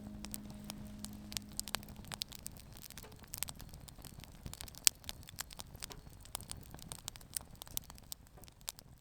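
Wood fire crackling, with irregular sharp pops and snaps that fade away near the end. Background music dies out in the first couple of seconds.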